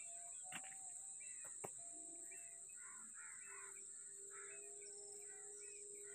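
Faint outdoor ambience of many birds chirping and calling, over a steady high-pitched insect buzz. Two soft clicks in the first two seconds.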